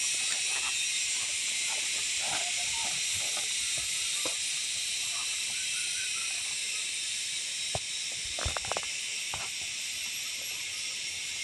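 Steady high-pitched hiss of an insect chorus, with faint short chirps and a few sharp clicks about eight seconds in.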